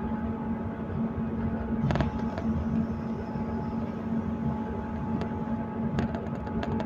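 Passenger train running at speed, heard from inside the carriage: a steady rumble with a constant engine hum, and sharp clicks about two seconds in and again several times near the end.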